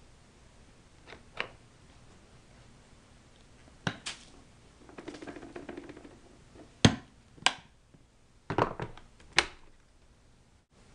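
Hard plastic parts of an upright vacuum cleaner being handled, with a scattered series of about ten sharp clicks and knocks and a short rustle in the middle. The loudest knock comes about seven seconds in. The motor is off.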